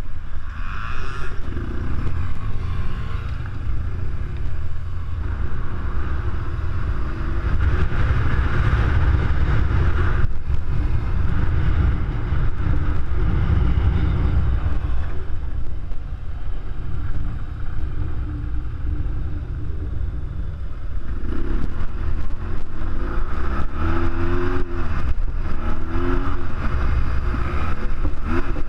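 BMW R1200GS Adventure's boxer-twin engine running under way on a gravel track. In the last third its pitch rises and falls several times as the throttle is opened and closed.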